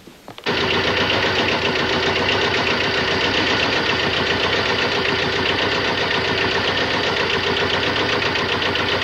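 Kubota compact tractor's diesel engine running steadily with a fast, even knock, cutting in suddenly about half a second in.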